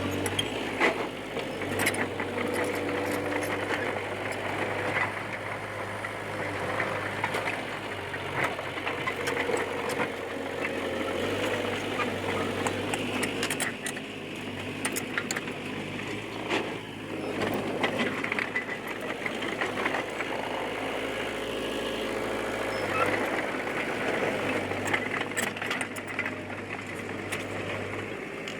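D20P crawler bulldozer's diesel engine running steadily, its pitch shifting a few times, with frequent clanks and rattles throughout.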